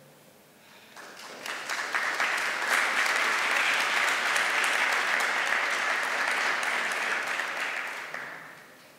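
Audience applauding: the clapping starts about a second in, swells quickly, holds steady, then dies away near the end.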